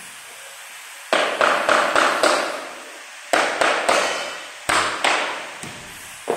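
Claw hammer knocking on a wooden tapping block against the edge of a wood-look floor plank, driving its joint closed. The taps come in several quick runs of sharp knocks, each ringing briefly.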